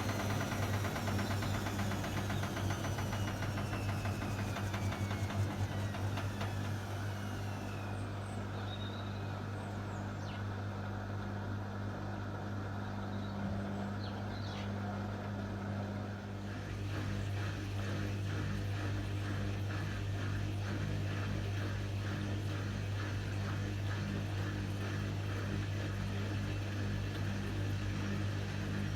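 Hotpoint WMA30 washing machine failing to spin an unbalanced load, with a steady low hum throughout. In the first several seconds the drum motor's whine falls in pitch as the drum slows. From a little past halfway, a regular rhythmic ticking sets in as the drum turns again.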